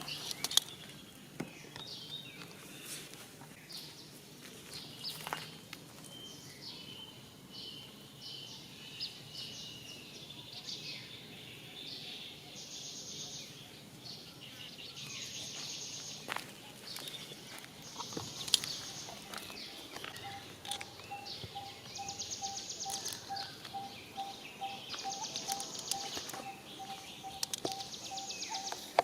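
Outdoor forest ambience of birds and insects calling. High buzzy trills of a second or two come back every few seconds, and from about two-thirds of the way through there is a steady run of evenly pulsed mid-pitched notes, with scattered clicks and rustles.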